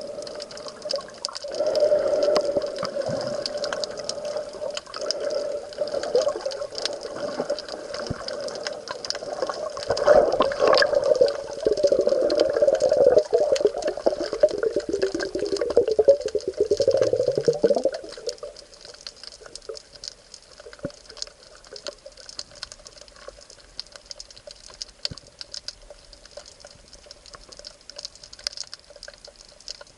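Sea water sloshing and churning around a camera filming in or at the surface of the sea. It stops fairly abruptly about two-thirds of the way through, leaving a faint steady hiss with scattered small ticks.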